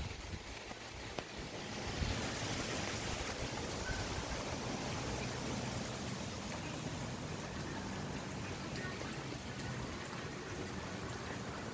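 Steady rush of wind and rain in the trees during a rainstorm, swelling about two seconds in and then holding.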